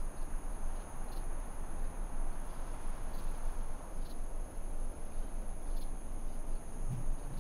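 Outdoor ambience: a steady high insect drone over a low hum and faint hiss, with a few faint soft ticks scattered through it.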